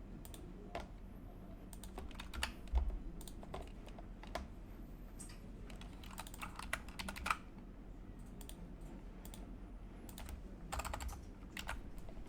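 Faint, irregular typing on a computer keyboard: scattered keystrokes and a few short flurries of taps.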